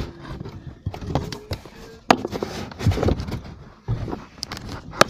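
Irregular muffled knocks, clicks and scuffing, as of handling in a confined dark space, with a sharper knock about two seconds in and brief faint snatches of voice.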